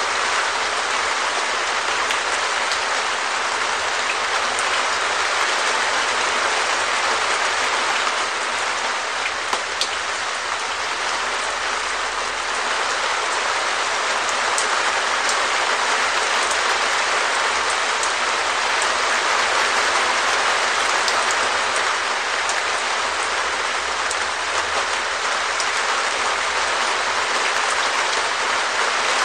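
Rain falling on a perspex (clear plastic) shed roof: a steady dense patter of drops, with occasional sharper individual drop hits.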